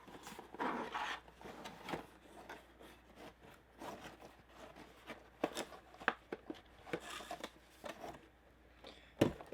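A Funko Pop's cardboard box and plastic insert being handled and opened: irregular rubbing and rustling with scattered sharp clicks, a louder rustle about half a second in and a sharp click near the end.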